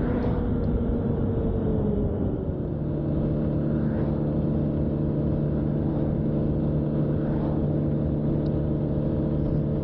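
Honda Ruckus's 49cc single-cylinder four-stroke scooter engine held at full throttle, running at a steady drone at its top speed of about 38 mph, with wind and road noise underneath.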